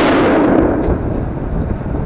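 The echo of a rifle shot ringing through an indoor shooting range, fading slowly.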